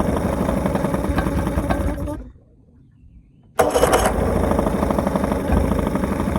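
Carbureted outboard motor firing up and running roughly for about two seconds, cutting out, then starting again about a second and a half later and keeping going. It sounds like it is running on one cylinder.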